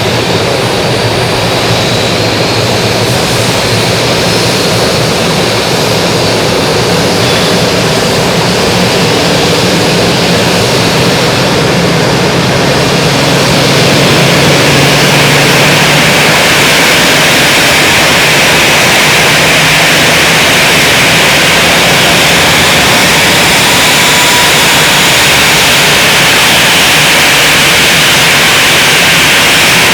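Airbus A319's CFM56-5B jet engines running with a loud, steady rush; about halfway through it grows a little louder and higher-pitched as the low hum fades.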